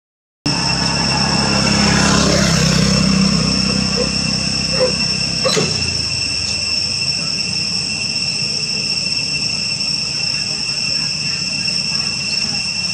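Steady, high-pitched drone of insects, with a low engine rumble in the first few seconds that fades out about five seconds in, and a couple of faint clicks around then.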